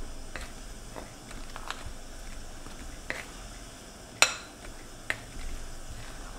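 A mixing utensil clicking and knocking against a glass bowl as it stirs stiff, floury biscuit dough. There are a handful of scattered taps, the sharpest about four seconds in.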